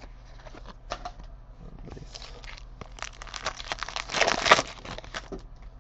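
Crinkling and tearing of a trading-card pack wrapper as a pack is opened. Light rustles and clicks come first, then a dense crinkle builds about three seconds in and is loudest past four seconds.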